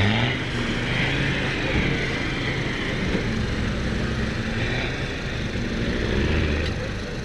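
Land Rover Defender 90's engine running and revving up and down as the 4x4 is driven through quarry mud.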